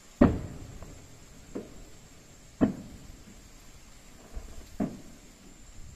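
Distant fireworks shells bursting: a series of booms, each followed by a short rolling echo. The loudest comes just after the start and another about two and a half seconds in, with fainter ones between and near the end.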